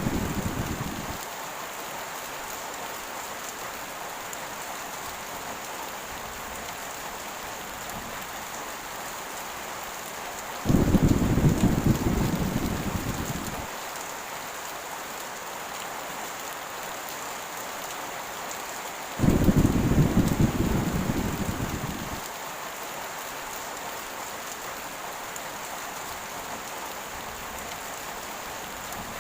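Steady heavy rain with rolls of thunder: one rumble fades out at the start, and two more break in suddenly about eleven and nineteen seconds in, each deep and dying away over about three seconds.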